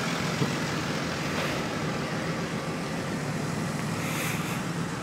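Steady road traffic noise from cars on a city street.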